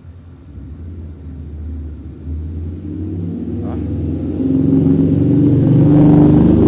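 A motor vehicle coming along the street, its engine getting steadily louder as it approaches.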